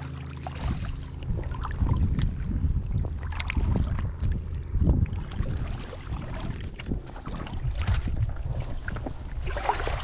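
Footsteps walking over a shell-covered beach, with irregular crunching clicks from the shells underfoot, over the wash of small waves lapping at the shore.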